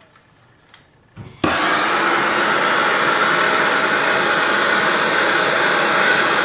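A hand soldering torch on a yellow MAP-Pro gas cylinder lights with a sudden pop about a second and a half in, then burns with a steady loud hiss as its flame heats a copper pipe joint for soldering.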